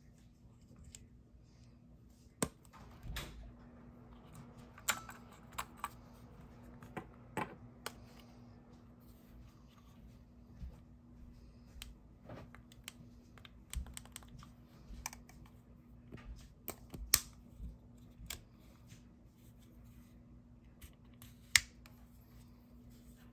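Irregular light plastic clicks and taps from hands handling an Olympus mju-II compact film camera: fingers pressing buttons and working the body. Two sharper clicks stand out in the second half, over a faint steady hum.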